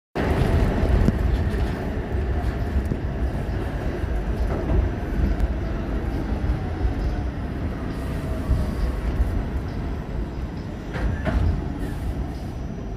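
New York City subway train on the IND Fulton Street Line: a steady loud rumble of wheels on rail, with a faint whine that falls in pitch, and brief sharp wheel squeals about eleven seconds in.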